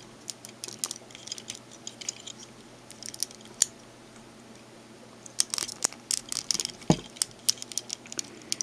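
Plastic clicks and light rattling from a Transformers action figure being handled as its leg and knee joints are bent and posed. Single sharp clicks here and there, with a quick run of clicks a little past the middle.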